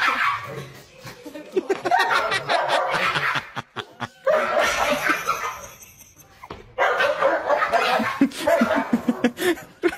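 People laughing in three bursts, mixed with a dog barking during rough play.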